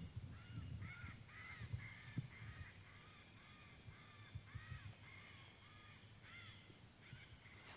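A faint run of short, repeated animal calls, about two a second, each rising and falling in pitch.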